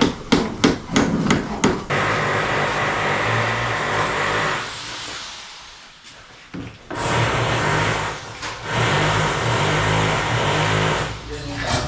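About six sharp hammer blows in the first two seconds. Then a power tool runs steadily for a few seconds, dies away, and runs again for about four seconds.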